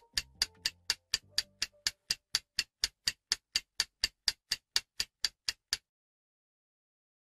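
Clock-tick sound effect of a countdown timer, about four sharp ticks a second, cutting off suddenly about six seconds in.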